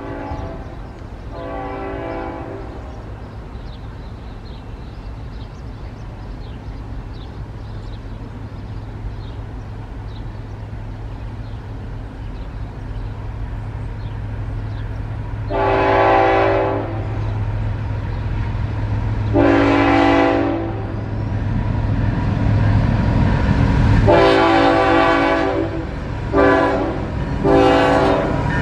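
Air horn of an approaching CSX ET44AH freight locomotive sounding for the crossing. Two short blasts come at the start, then after a long gap three long blasts and two short ones as it closes in. Beneath the horn a diesel locomotive's rumble grows steadily louder, with the crossing bell ticking faintly.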